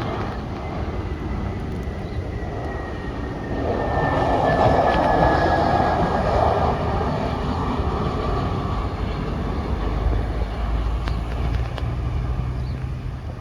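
Airbus A320 jet engines passing by, a steady roar with a whine that slowly falls in pitch, loudest about four to six seconds in.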